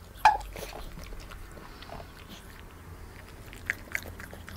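Small dog eating a bowl of chicken, vegetables and quinoa: soft chewing and mouth sounds with faint scattered clicks, two of them sharper near the end. One brief, louder sound with a falling pitch comes just after the start.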